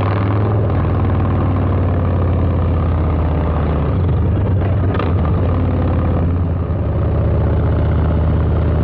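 Harley-Davidson Low Rider S's 117 Milwaukee-Eight V-twin running loud and steady under way through a Two Brothers two-into-one exhaust, with a slight dip in the note about four seconds in.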